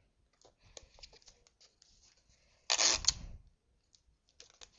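Paper tube and sticky tape being handled: faint clicks and rustles, then about three seconds in a short, loud rip, as of tape pulled off the roll to tape the rolled paper.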